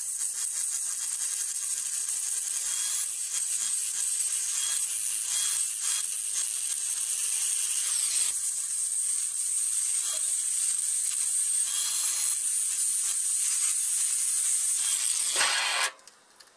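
A power grinder grinding down a link pin on a motorcycle's O-ring drive chain to remove a link, a steady high-pitched grinding that cuts off suddenly about a second before the end.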